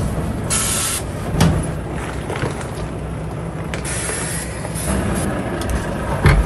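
Lorry tractor unit's diesel engine running steadily, with short bursts of air hiss about half a second in and again around four seconds in, and a thump about a second and a half in and another near the end.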